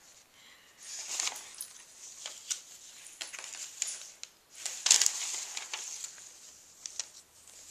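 Loose magazine and cookbook pages being lifted and turned over by hand, a run of crackly paper rustles, with the loudest rustle about five seconds in.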